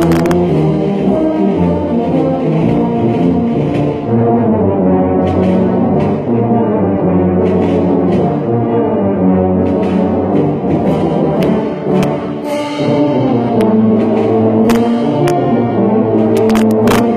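A large group of tubas playing a piece together in harmony, low sustained notes moving in chords, the nearest tuba loudest. A few short sharp clicks sound over the playing.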